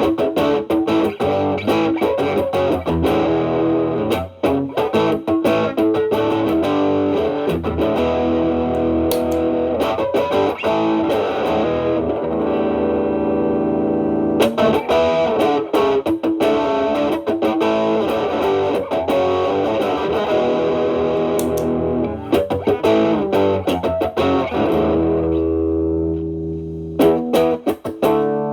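Overdriven electric guitar: a Stratocaster played through an Xotic BB Plus preamp with channel A boosting channel B (channel B gain at 10) into a Marshall Valvestate amp. It plays improvised lead lines of picked notes with some held notes, and the playing thins out near the end.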